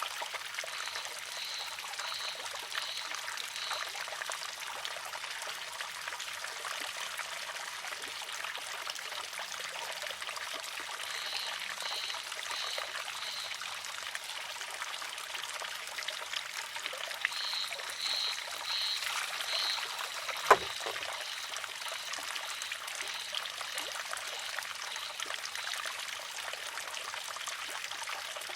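Water trickling steadily into and through a wooden shishi-odoshi, with one sharp wooden clack about twenty seconds in as the water-filled arm tips, empties and strikes its rock. Runs of short high chirps sound over the water three times.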